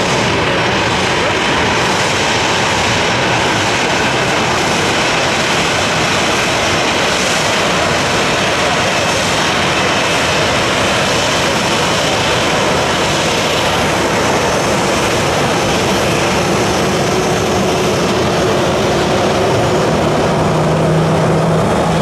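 Boeing 737-800's CFM56-7B turbofan jet engines running steadily at taxi thrust, a constant rush with a steady whine in it. A low steady hum joins near the end.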